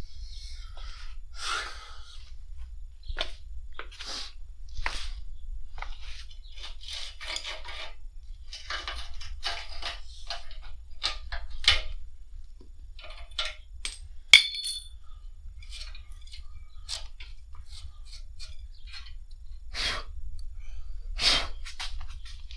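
Metal parts and hand tools clinking, knocking and scraping in irregular handling, with a sharp ringing metal clink about 14 seconds in and a couple of heavier knocks near the end. A steady low rumble runs underneath.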